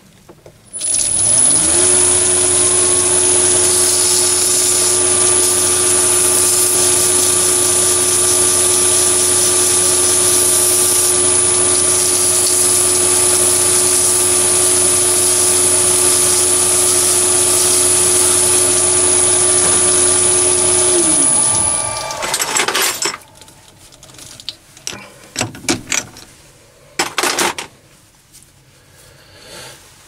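Mini lathe motor spinning up, running steadily with a high-pitched whine for about twenty seconds while turning a brass door knob, then spinning down near the end. Scattered small clicks and knocks follow, from handling the brass piece at the lathe.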